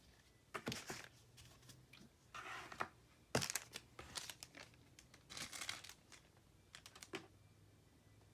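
Crinkling and rustling of a foil Pokémon booster-pack wrapper and cards being handled, in about five short, irregular bursts.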